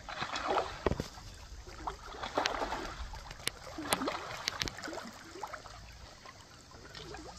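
River water running, with a few sharp clicks and knocks.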